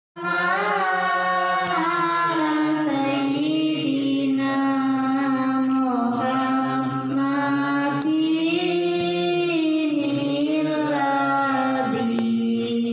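Islamic devotional chant (sholawat) sung slowly in long held, wavering notes with no instruments.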